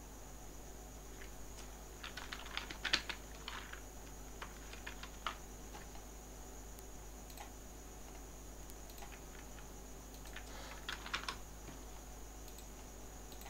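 Typing on a computer keyboard: a run of keystrokes about two seconds in, then a second short burst of keys near the end.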